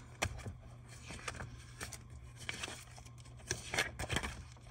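Sheets of a spiral-bound sticker book being flipped and handled: a run of quick paper rustles and flaps, busiest and loudest in the second half.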